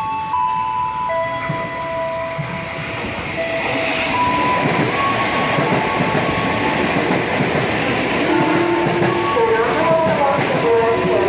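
KRL electric commuter train running on the rails, its rumbling noise building up over the first few seconds and then holding steady. Over it come clear tones that jump from pitch to pitch every second or so and bend near the end.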